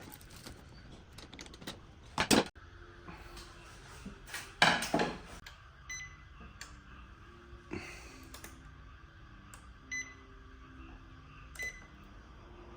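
Two knocks or clatters, the louder about a third of the way in, then four short electronic beeps one to two seconds apart, from the control panel of a Hitachi HTB-A9S induction cooker.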